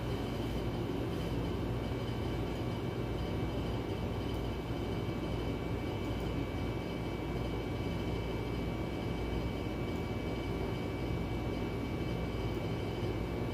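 Steady mechanical hum and hiss with several faint steady high whining tones, unchanging throughout.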